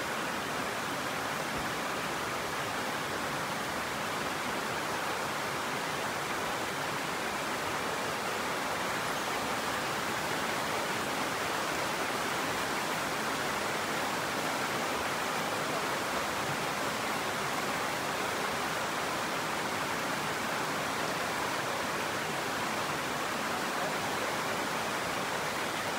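Shallow rocky stream rushing over rock slabs, a steady, unbroken rush of water.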